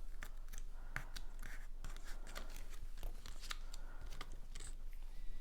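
Cardstock being handled and pressed together on a work surface: irregular light clicks, taps and paper rustles.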